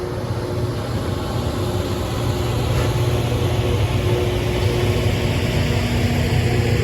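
Diesel engines of a LORAM rail grinder running as it moves along the track, a heavy low drone with a couple of steady whining tones, growing louder over the first few seconds as it comes closer.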